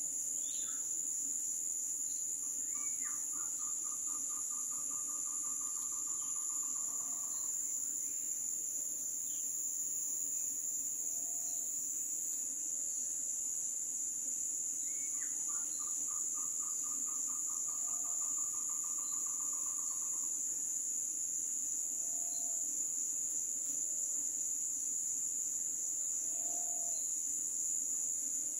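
Steady, high-pitched drone of an insect chorus in tropical forest. Twice, a few seconds in and again about halfway through, a short high note leads into a rapid, even trill that lasts about four to five seconds.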